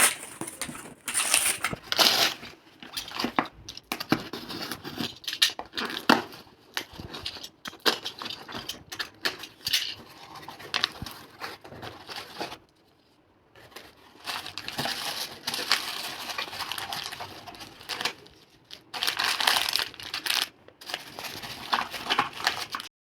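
Packaging being unwrapped by hand: paper and plastic rustling and tearing in irregular bursts, with small clicks and taps, and a brief pause about 13 seconds in.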